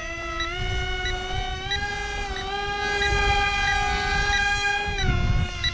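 Twin brushed electric motors and propellers of a BM F-22 RC airplane whining in flight. The pitch steps up twice early on as the throttle is raised, holds, then drops near the end, with wind rumble on the microphone.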